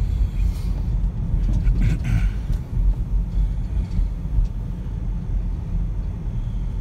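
Steady low rumble of a car driving, engine and road noise heard from inside the cabin, with a few faint brief higher sounds around two seconds in.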